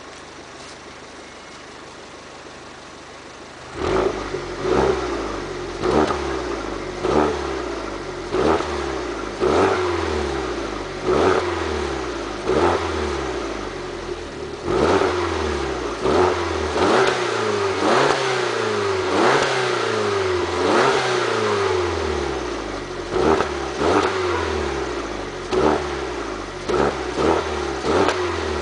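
Alfa Romeo MiTo Quadrifoglio Verde's 1.4 MultiAir turbo four-cylinder on its stock exhaust, idling low at first. About four seconds in the sound jumps up, then the engine is blipped over and over, about once a second, each rev rising sharply and falling back.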